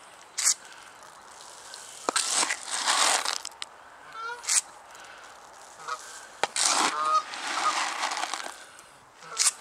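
Geese honking, a few short calls, among several louder bursts of noisy crunching; the longest bursts come about two and seven seconds in.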